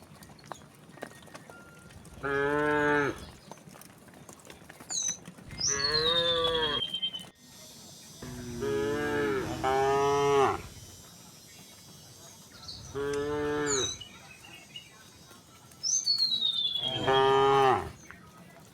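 Cows mooing one after another, about every two to three seconds, each moo long and drawn out, two of them overlapping near the middle. High falling whistles sound now and then between and over the moos.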